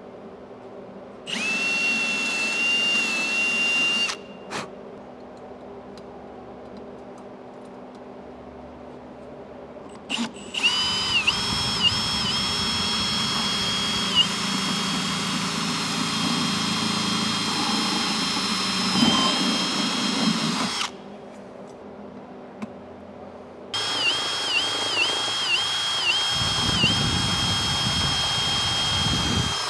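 Cordless drill drilling 1/8-inch rivet holes through a snorkel spigot flange into a plastic airbox: a short run near the start, a long run of about ten seconds in the middle and another of about six seconds at the end. The whine dips in pitch again and again as the bit bites and the motor is loaded.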